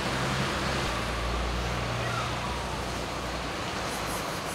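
Street traffic: a vehicle engine's low rumble over a steady hiss, fading about three and a half seconds in.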